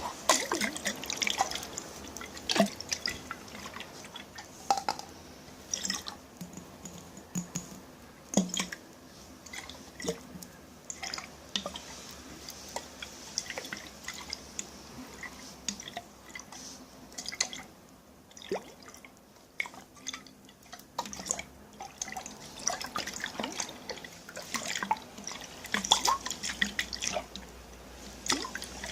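Water dripping and plopping in a container: irregular drops and small splashes, some with short pitched plinks, with a brief quieter lull about two-thirds through.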